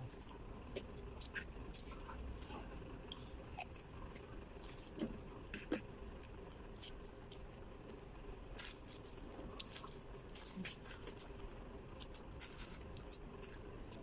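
Eating a balut egg: scattered small clicks, crackles and crunches from handling the shell and biting, over a faint steady hum.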